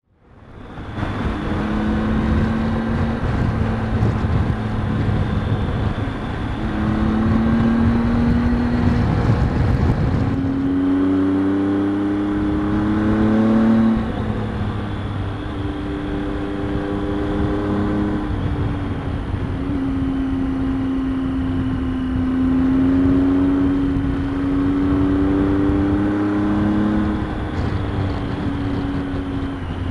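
Triumph Tiger 800 XCx's three-cylinder engine running under way on a motorcycle ride, with wind rushing past. Its pitch climbs as it accelerates and drops back at each gear change, several times over, holding steady for a while in the second half.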